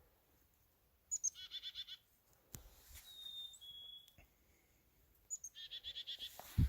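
Small songbirds calling close by. There are two runs of rapid repeated buzzy notes, one about a second in and one near the end, and between them a clear two-note whistle whose second note is lower.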